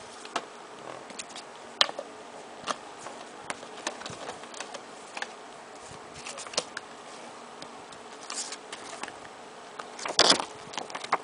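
Hands handling a CD album's packaging: scattered clicks and taps, with short rustles of plastic and paper, the loudest rustle about ten seconds in. A steady hiss runs underneath.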